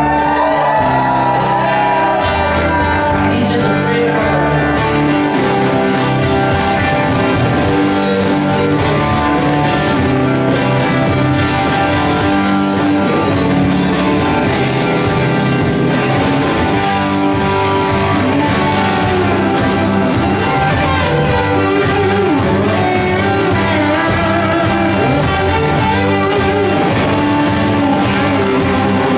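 Live rock band playing a song's outro: electric guitars, bass guitar and drums, loud and continuous.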